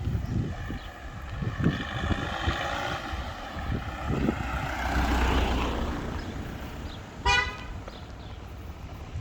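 A motor vehicle going by: its engine hum swells to a peak about five seconds in, then fades. About seven seconds in comes one short toot, like a horn.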